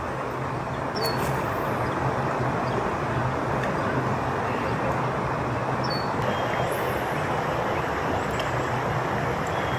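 Steady outdoor rushing noise with a low hum underneath, of the kind heard from distant road traffic, with two short high chirps, one about a second in and one about six seconds in.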